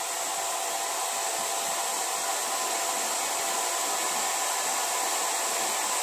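Havells 1500 W hand-held hair dryer running steadily: a continuous rush of air with a faint steady whine in it.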